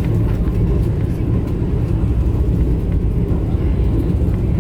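Steady low rumble of the Vande Bharat Express running at speed, heard from inside the carriage, with faint scattered clicks.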